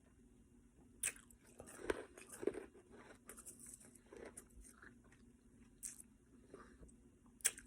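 Ice being bitten and crunched between the teeth: irregular sharp cracks with softer crunching between them, the loudest bites about a second in and near the end.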